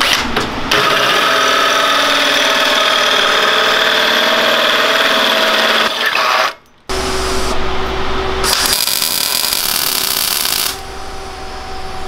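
Cordless drill driving a tube bender, running steadily under load as it bends metal tubing, for about six seconds. It cuts off suddenly, and after a brief gap a second loud, hissing steady machine sound follows for a few seconds.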